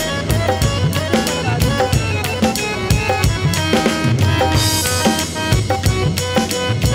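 Instrumental break in a live devotional song: a drum kit plays a busy, driving beat under melodic instruments, with a cymbal crash a little past the middle.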